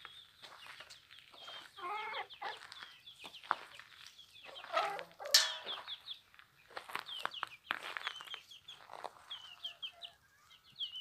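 Chickens clucking, with half-grown chicks peeping in short, high chirps again and again throughout. Louder hen calls come at about two seconds and about five seconds in.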